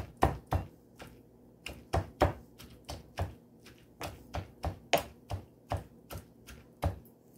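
A pestle pounding dried shrimp and tomato in a small mortar, a steady run of sharp knocks at about three a second.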